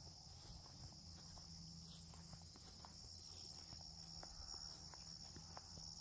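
Faint, steady, high-pitched chorus of insects, with scattered soft clicks over it.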